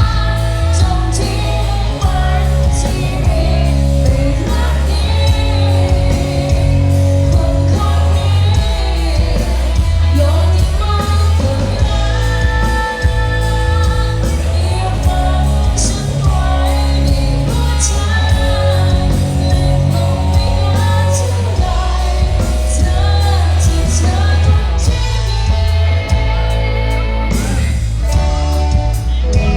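Live band music with a singer over a loud, heavy bass line.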